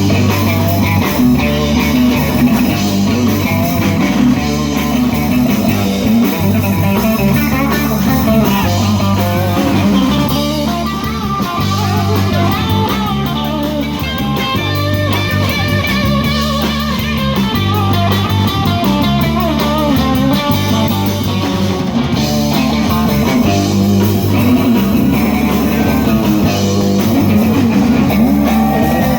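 Band playing an instrumental break without singing: an electric guitar lead over repeating bass notes and a drum kit.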